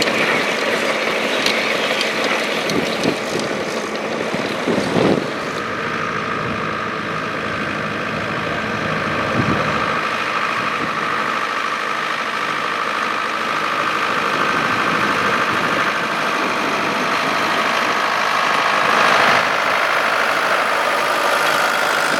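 Volvo BM tractor diesel engine running steadily, with two brief knocks about five and nine and a half seconds in.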